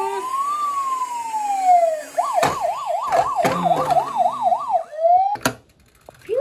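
Electronic siren of a toy police patrol car: one slow wail rising and then falling, then a fast warbling yelp for about three seconds with a couple of knocks, ending in a sharp click and a brief gap before another wail starts near the end.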